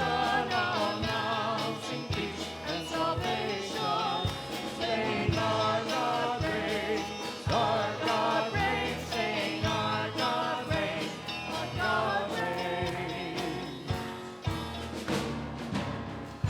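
Worship music: voices singing together over instruments, with a steady beat.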